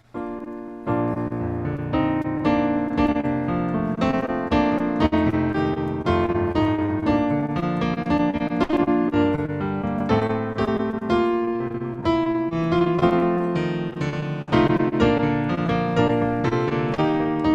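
Instrumental piano music: a continuous flow of notes and chords, starting right at the beginning.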